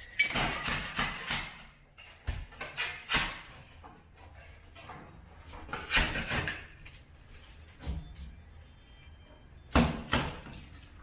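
Knocking and scraping in separate bursts: a run of sharp knocks at the start, more about three seconds in, a cluster about six seconds in, and a loud knock near the end.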